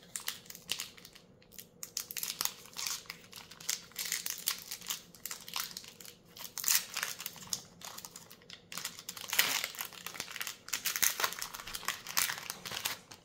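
Plastic wrapper of a Magic: The Gathering Collector Booster pack crinkling irregularly as it is handled and opened.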